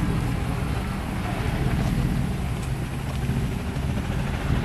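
Engine running steadily nearby, a low even rumble, with wind buffeting the microphone.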